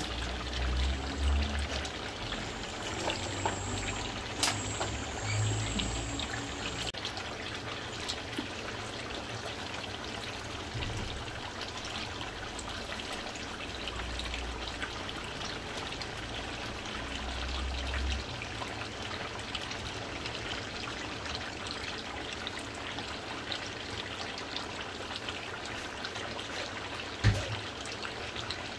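Mutton cooking in a pot: a steady hiss with many small crackles, like a sizzling, bubbling pan of meat and liquid. A single thump sounds near the end.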